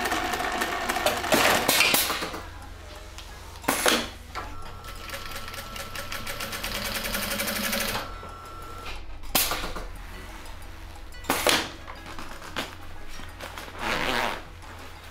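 Juki industrial sewing machine stitching the heavy fabric of a drum case in runs, its motor giving a steady whine for a few seconds in the middle. Short, loud rustles and bumps of the fabric case being handled come through several times, most of them in the second half.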